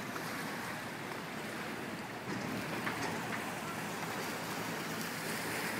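Rhine passenger ship MS Loreley manoeuvring close by: a steady rush of water churned by its propellers, with a faint low hum beneath.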